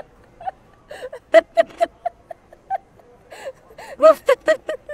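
A woman giggling: short, high-pitched laughs in uneven runs, some of them breathy.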